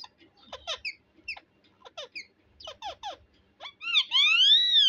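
Pet green parakeet giving a run of short, quick chirps, then a loud drawn-out call that rises and falls in pitch near the end.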